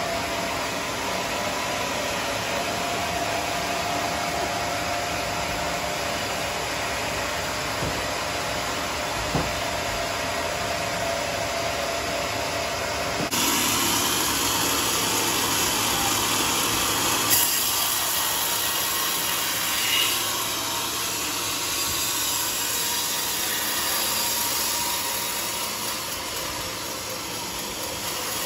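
Large band sawmill running with a steady hum. About thirteen seconds in the sound changes abruptly and turns louder and hissier as the blade saws through a teak log.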